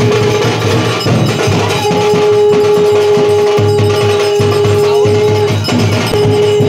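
Music: rhythmic percussion under a long, steady held note that breaks off about five and a half seconds in and starts again shortly after.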